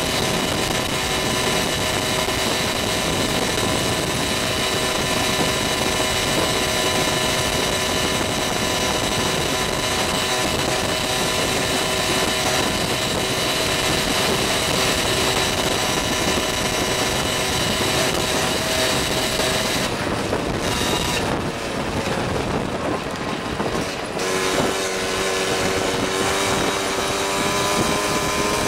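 Vespa Ciao moped's small two-stroke engine running at cruising speed, with wind and road noise. About 20 seconds in the high end drops away for a few seconds as the throttle eases, then the engine note climbs slowly as it picks up speed again.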